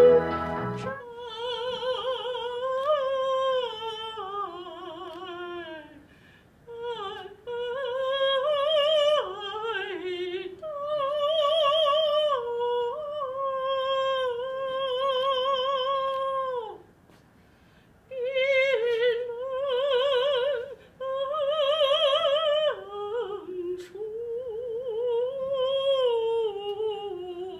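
A woman's voice singing a Peking opera passage unaccompanied, high-pitched with a wide vibrato on long held notes, broken by short pauses about six and about seventeen seconds in. Recorded accompaniment ends about a second in.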